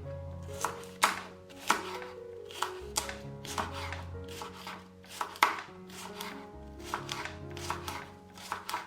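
A knife chopping on a cutting board in uneven strokes, about one or two a second, the loudest about five seconds in, over background music.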